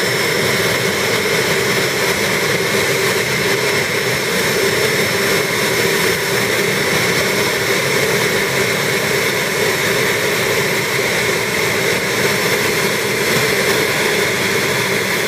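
Cessna Citation CJ1's twin Williams FJ44 turbofan engines running at low ground power: a steady jet whine over a rushing noise, with no rise or fall in pitch.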